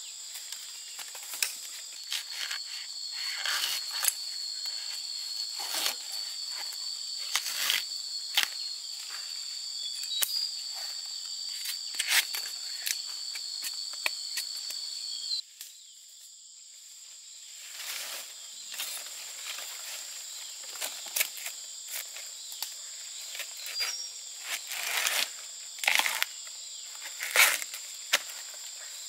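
Insects trilling and chirping steadily, with one high, even trill that cuts off a little past halfway, when the whole background briefly drops away. Scattered sharp crackles and snaps run throughout.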